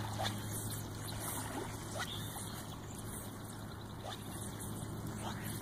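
Boat motor running with a steady low hum, with water trickling.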